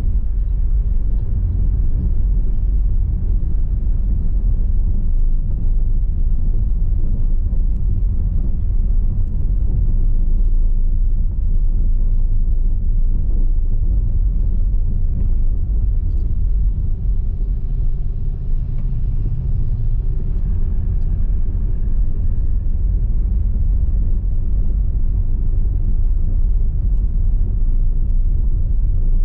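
A car driving slowly over cobblestone streets, heard from the car: a steady low rumble of tyres and engine.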